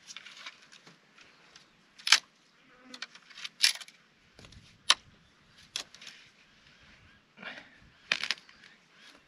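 Dry sticks cracking as firewood is gathered and snapped by hand: about five sharp cracks spread over several seconds, with soft rustling of twigs between them.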